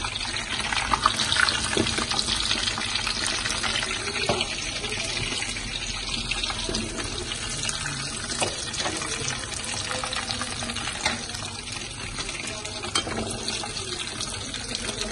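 Breaded turkey rolls frying in a pan of hot oil: a steady sizzle with many small crackles.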